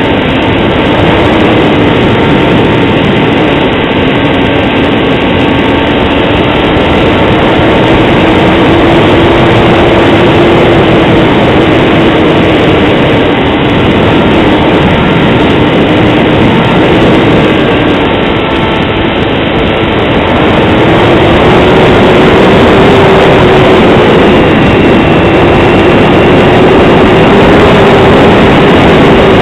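Motor and propeller of a scratch-built Depron foam RC plane running steadily in flight, heard from on board over heavy wind rush, its pitch wavering and rising a little about two-thirds of the way in.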